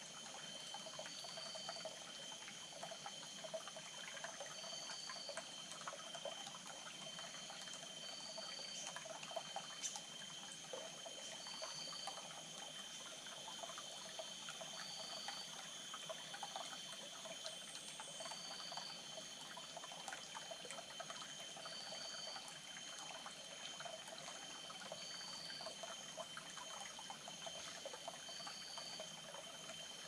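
A shallow rainforest stream trickling quietly over rocks, with a steady high whine and a short high chirp repeating about every three and a half seconds.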